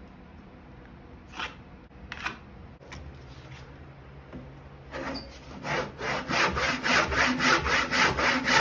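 Hand saw cutting through a clamped wooden board with quick, even strokes, about five a second, starting about five seconds in. Before that, a few light knocks and scrapes as the board is handled.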